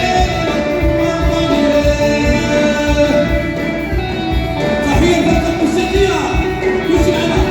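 Live Moroccan Hassani (Sahrawi) music from an amplified band, with singing over a steady drum beat.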